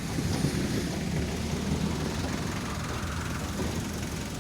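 A small vehicle's engine running steadily under a ride, with a low rumble and road noise.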